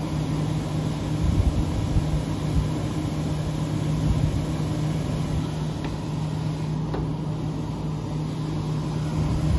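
1970 Signature 6,000 BTU window air conditioner running on high cool: a steady rush of air from its fan with a constant low hum under it.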